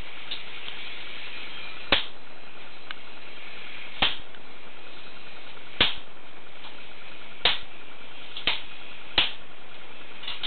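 Kitchen knife knocking sharply on a packet of cheese on a worktop, six knocks a second or two apart, over a steady hiss.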